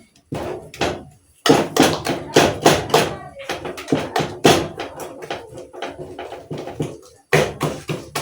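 Repeated knocks of a masher against a metal cooking pot as mukimo is mashed, several strokes a second, the pot ringing after each. The strokes pause briefly about a second in and again near the end.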